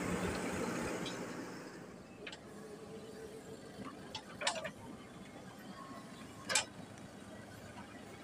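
Diesel engine of the earthmoving machinery running, loud at first and dying down over the first two seconds, then a low background with a few short, sharp knocks. The two loudest knocks come about four and a half and six and a half seconds in.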